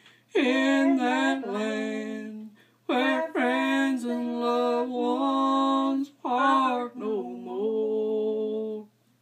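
A single unaccompanied voice singing the closing phrases of a gospel song: several long held notes with short breaths between them, stopping just before the end.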